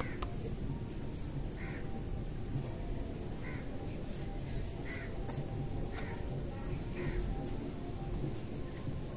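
A bird calling repeatedly, about six short harsh calls spaced roughly a second apart and ending a couple of seconds before the end, over a steady low rumble.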